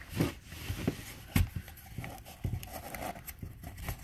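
A small cardboard jewelry gift box being handled and its lid worked open: scattered light knocks, taps and rubbing of cardboard and fingers against a table, with a sharper knock about a second and a half in.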